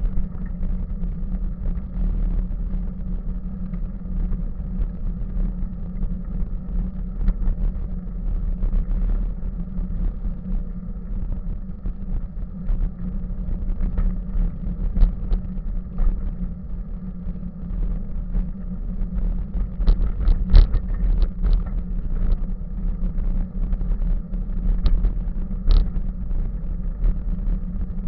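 Bicycle rolling along a paved path, heard through a bike-mounted camera: a steady low rumble of tyres and frame vibration, with scattered knocks and rattles over bumps, the loudest about two-thirds of the way through.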